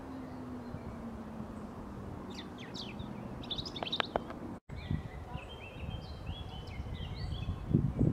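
European robin singing: high, thin warbled phrases about two seconds in. After a brief break, a run of stepped whistled notes follows, with a low hum fading in the first half and a louder rustle in dry leaves near the end.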